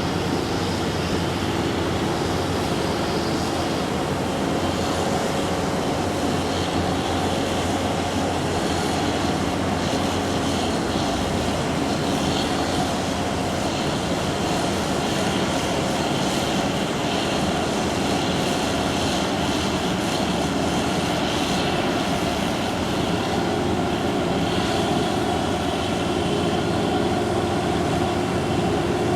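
Combine harvester running steadily: a continuous, unchanging mechanical drone.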